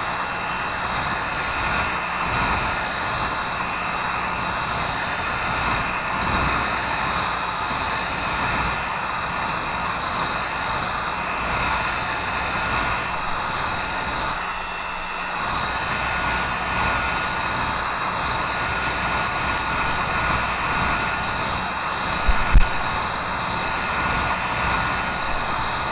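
Hot-air blower running steadily as the phone's screen is heated so it can be pried off, with a brief dip in level about fifteen seconds in.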